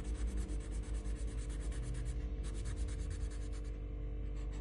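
Colouring tool scratching back and forth on paper in quick, even strokes, about five or six a second, shading in an area. There is a brief break about two and a half seconds in.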